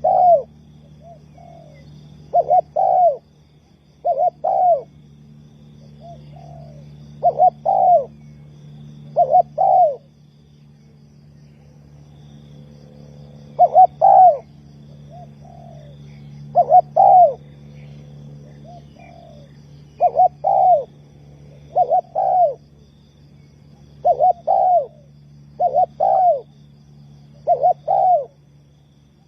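Spotted dove cooing: short phrases of two or three coos, repeated every second or two, with a few seconds' pause near the middle. A steady low hum runs underneath.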